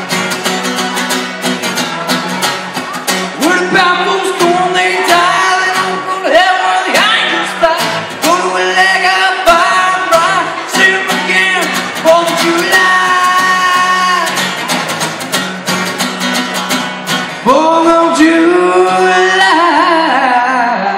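Acoustic guitar strummed steadily under a man's singing voice, amplified through a PA. The singing comes in about three seconds in with some long held notes, breaks off briefly near the end, then comes back.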